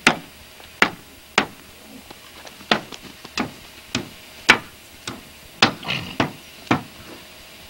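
Repeated sharp knocks, about a dozen at uneven intervals of roughly half a second, the loudest a little past the middle.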